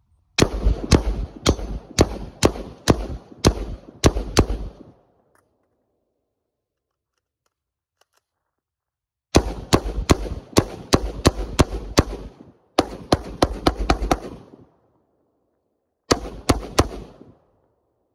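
Palmetto State Armory AR-15 rifle fired semi-automatically in quick strings of about two shots a second: about nine shots, a pause of several seconds, a longer string with a brief break in the middle, then three more shots near the end.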